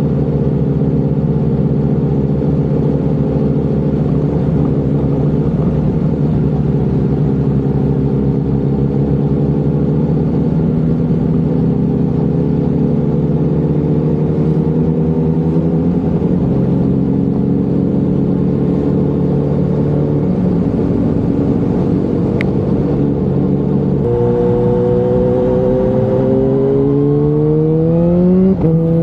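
Motorcycle engine running at low, steady revs through a junction, then pulling away. Its pitch steps up and down with gear changes, climbs sharply under acceleration near the end, and drops at an upshift just before the end.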